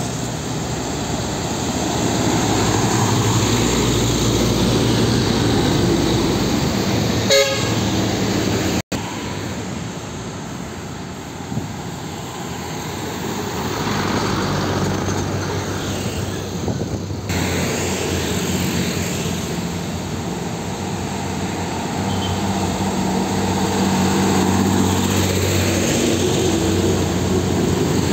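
Heavy trucks passing on a city road, their diesel engines running with traffic noise, and a short vehicle horn toot about seven seconds in.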